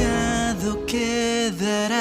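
A pop song: a singer holds long notes with vibrato over backing music, the voice dipping briefly in pitch twice.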